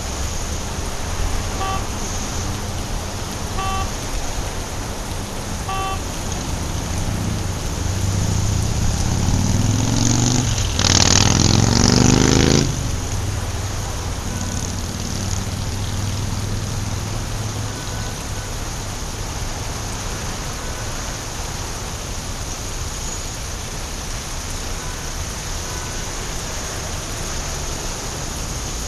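Steady rain falling on a wet city street, with a vehicle passing on the wet road about a third of the way in. Its engine note rises and its tyre hiss swells to the loudest point, then cuts off fairly suddenly. Early on, three short beeps sound about two seconds apart.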